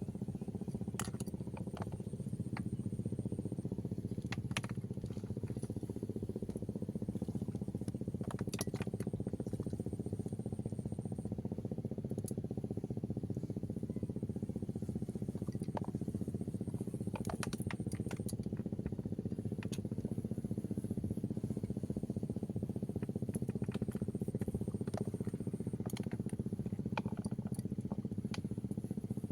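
An engine running steadily at an even speed, with scattered light clicks over it.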